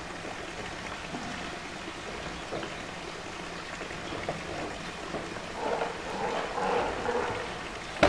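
Knocks and scraping of a blue plastic polytank as a young polar bear mouths and rolls it on wet concrete, over a steady hiss of running water. The handling grows busier past the middle, and there is a sharp knock at the very end.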